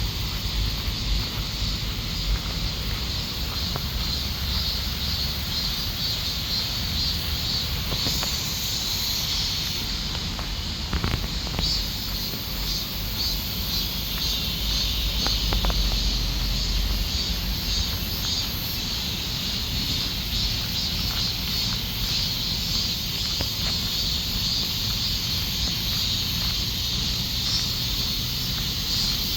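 Summer chorus of cicadas buzzing in a dense, pulsing drone, with a low rumble underneath.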